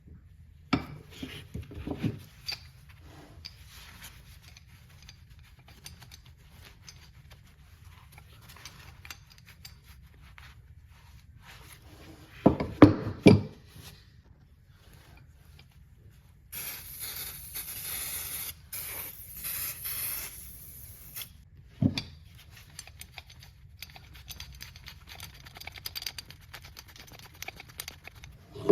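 Metal tool parts of a pipe wrench being handled on a bench: scattered clicks and knocks, a cluster of loud clanks about halfway through, then a hissing spray in three bursts lasting about five seconds, and one more sharp knock.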